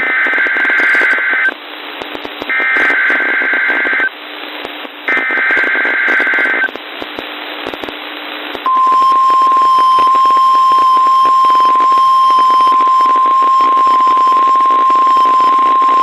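NOAA Weather Radio Required Weekly Test played through a weather radio receiver. It opens with three short bursts of the screechy two-tone SAME digital header, with radio hiss between them. A little past the middle, the steady 1050 Hz warning alarm tone begins and holds unbroken.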